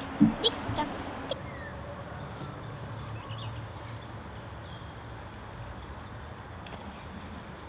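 Outdoor riverside ambience: a few short, loud bird calls in the first second and a half, then a steady background hiss with a low hum.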